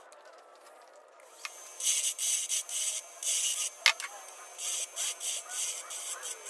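Turning tool cutting the spinning purple heart section of a lathe-turned ornament blank: a scraping cut in short repeated strokes that starts about two seconds in, with a few sharp clicks.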